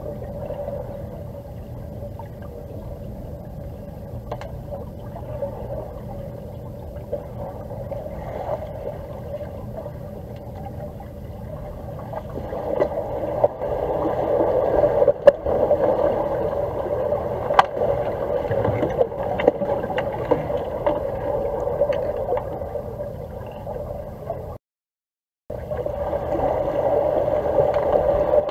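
Underwater swimming-pool ambience picked up by a submerged camera: a steady hum with crackling and occasional sharp clicks. It grows louder about twelve seconds in and cuts out completely for about a second near the end.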